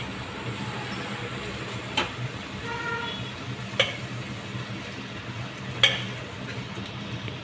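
Onion-tomato masala sizzling in a kadhai as boiled white peas and their cooking liquid are tipped in from a pressure cooker, with a few sharp knocks of metal against the pan, about every two seconds.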